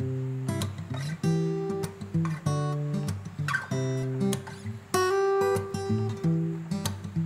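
Guitar music: chords strummed in a steady, repeating pattern.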